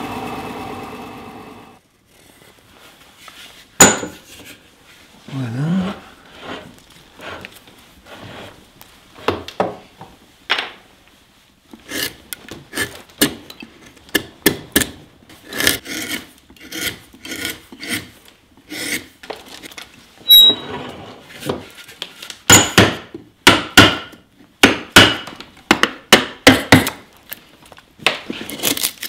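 A carving gouge paring chips from a wooden hat block by hand: short, irregular scraping cuts into the wood, sparse at first, then coming in quick, louder runs.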